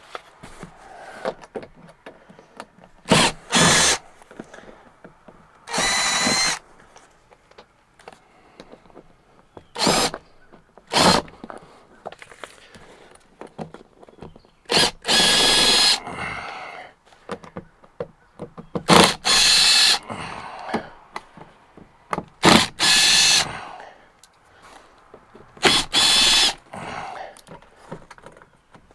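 Power drill driving out screws overhead, in about nine short runs of a few seconds apart, each a rising and falling motor whine.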